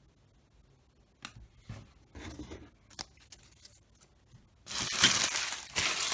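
Trading cards being handled with light clicks and rustles, then a baseball card pack's foil wrapper tearing and crinkling loudly in two bursts near the end.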